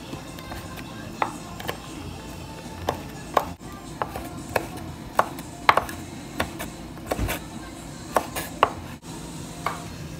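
Chef's knife slicing fresh red chilies on a wooden cutting board: sharp, uneven knocks of the blade hitting the board, roughly two a second.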